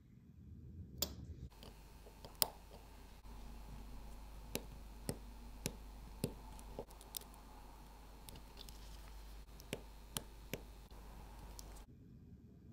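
Small sharp clicks and taps of steel watchmaker's tools and the movement holder against a wristwatch movement as it is handled and reassembled, about a dozen scattered at irregular intervals over a faint steady hum.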